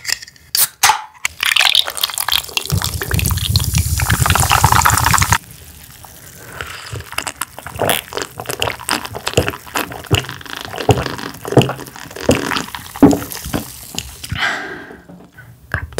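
Liquid poured into a glass for about four seconds, glugging at the end and stopping abruptly. This is followed by a string of short wet mouth clicks and smacks.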